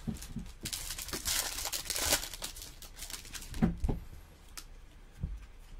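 Foil wrapper of a Bowman baseball card pack being torn open and crinkled, then a few soft knocks as the cards are handled.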